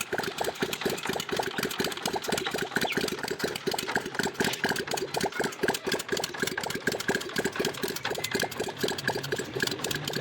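Honda CD-70 single-cylinder four-stroke motorcycle engine idling, a rapid, even firing beat that holds steady.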